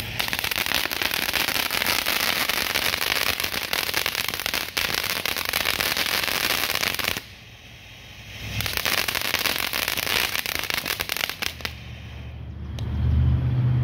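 Small consumer ground fountain firework spraying sparks with a dense crackling hiss. It drops out for about a second around seven seconds in, then resumes and dies away shortly before the end.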